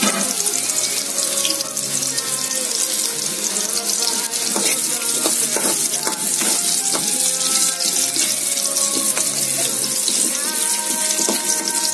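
Potato cubes sizzling steadily in hot cooking oil in an aluminium wok, with scattered clicks and scrapes of a metal spatula stirring them against the pan.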